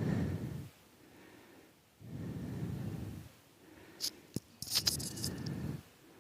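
Slow breathing close to the microphone, about three breaths two seconds apart, with a cluster of sharp clicks from small tools during repair work near the end.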